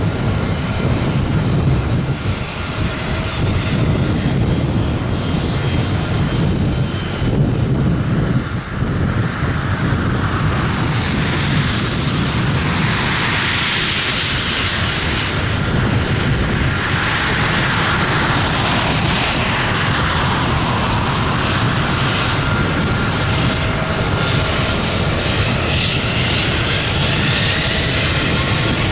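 Airbus A320 jet engines running at takeoff power: a steady loud noise whose high hiss swells twice near the middle, with faint rising whine tones near the end.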